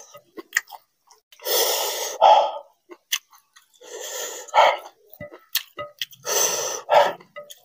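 A man huffing air hard through his mouth three times, each long breath ending in a sharper puff, from the burn of very hot food with green chillies. Small wet clicks of chewing and of fingers working the rice come between the breaths.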